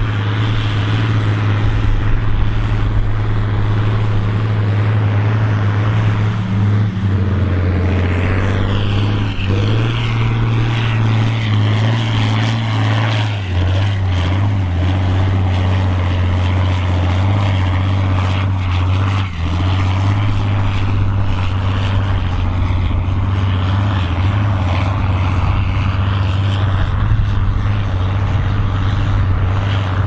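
John Deere 4440's turbocharged six-cylinder diesel running hard under load while pulling a plough. The engine note is loud and steady, and its pitch steps down and back up a few times.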